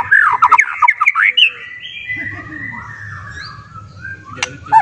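White-rumped shama singing. A burst of loud, rapid, slurred whistles comes first, then softer held and gliding notes, then a fresh run of quick whistles near the end.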